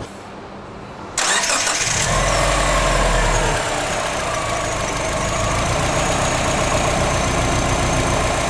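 Subaru Forester XT's 2.5-litre turbocharged flat-four engine starting after an oil change: it fires suddenly about a second in, its speed falls over the next couple of seconds, and it settles to a steady idle.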